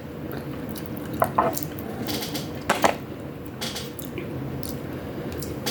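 Mukbang eating sounds: cutlery clinking against a plate and chewing of rice, ground pork and chicken wings, heard as scattered short clicks at irregular intervals.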